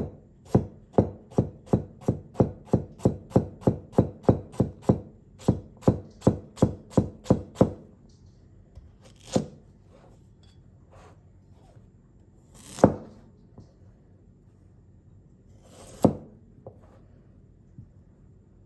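Small thick carbon-steel (C75s) cleaver chopping carrots on a cutting board. About twenty quick knocks of the blade through the carrot onto the board come at roughly three a second for the first eight seconds. Then three single chops follow, a few seconds apart.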